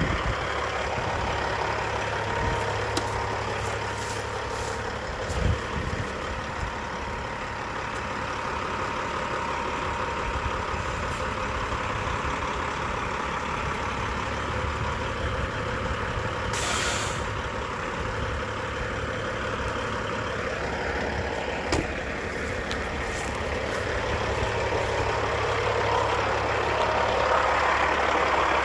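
Diesel semi truck engine running steadily, with a short burst of hissing air about two-thirds of the way through and a few light clicks.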